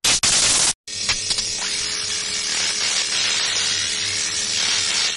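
Sound effect of a neon sign switching on: a loud burst of electric hiss and crackle, a brief break, then a steady electric hiss with a low hum that cuts off suddenly at the end.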